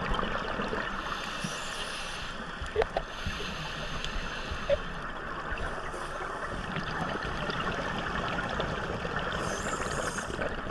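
Underwater sound heard through a camera housing: a steady crackle, with hissing bursts of scuba divers' exhaled regulator bubbles every few seconds.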